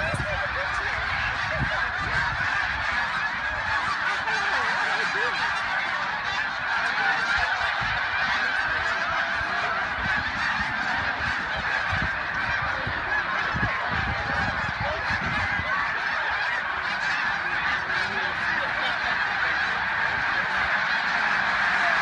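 A huge flock of snow geese calling in flight overhead: a dense, unbroken mass of overlapping honks that goes on without a pause.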